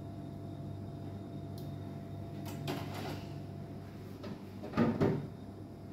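A plastic ice-cube tray is handled and put back into a small bar fridge's freezer compartment, with a few light knocks, then a louder clunk about five seconds in as a fridge door is shut.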